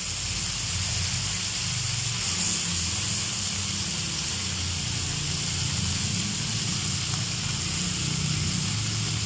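Chicken breasts sizzling steadily in hot oil in a cast-iron skillet, with a low steady rumble underneath.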